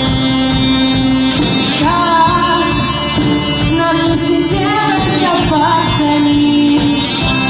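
A song: a singing voice carrying a wavering melody over held accompanying notes.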